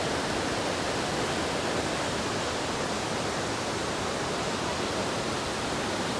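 Attukad waterfall pouring in a steady, very loud rush of water, even and unbroken throughout.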